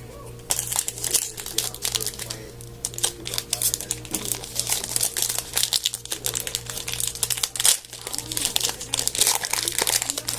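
Hockey card pack wrappers crinkling and crackling in the hands as packs are handled and opened, a dense run of crackles starting about half a second in.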